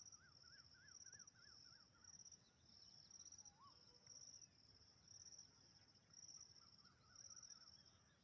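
Faint chorus of crickets or similar insects, a high trill pulsing about twice a second throughout. A run of quick repeated chirps comes in the first two seconds and again near the end.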